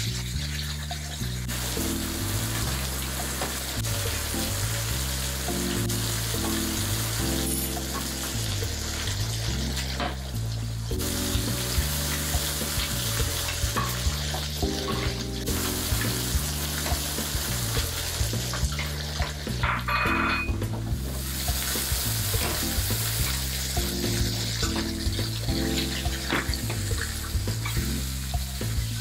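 Whole surf perch frying in hot oil in a skillet, sizzling steadily, with garlic sizzling in a second pan as a wooden spoon stirs it. Background music plays throughout.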